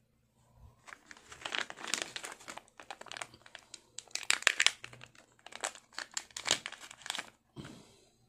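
Plastic anti-static bag crinkling as it is handled and opened, in irregular bursts of rustling starting about a second in, with one last short crinkle near the end.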